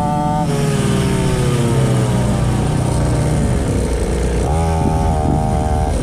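Cheap mini dirt bike's small two-stroke engine under way: its pitch falls as the throttle is let off just after the start, then rises again as it revs back up about four and a half seconds in, with wind and road noise underneath.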